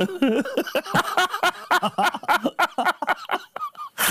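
A man vocalising through a ball gag: a quick run of garbled, wordless voice sounds.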